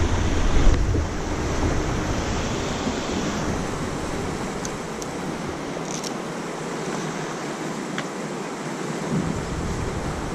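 Wind buffeting the microphone: a steady rushing hiss with heavy low rumbling in the first second or two, easing off in the middle and building again near the end.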